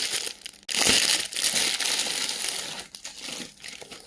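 Crinkly packaging being crumpled and pulled away as a small handbag is unwrapped. The rustling is loudest for the first few seconds, then thins to lighter rustles and clicks.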